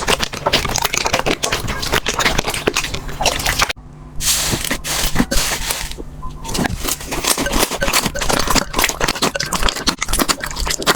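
Slime being squeezed and worked, a dense run of small crackles and pops. A short break comes just under four seconds in, followed by a smoother, hissier stretch before the crackling returns.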